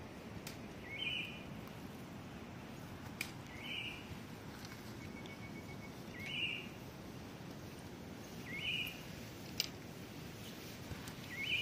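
A forest bird repeating one short, upward-stepping call about every two and a half seconds, over a steady low background hiss, with a few faint clicks.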